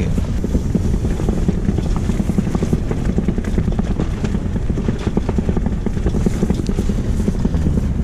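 Kamp Rite tent cot's rainfly and nylon walls flapping and rattling in strong, gusting wind, a loud, continuous racket with a low rumbling flutter.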